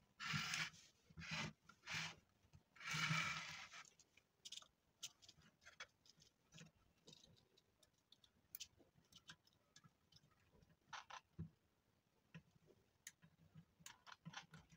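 Rustling and scattered small clicks of thin speaker wire being handled and pushed into an amplifier's spring-clip speaker terminals. A few louder rustles come in the first few seconds, then light ticking.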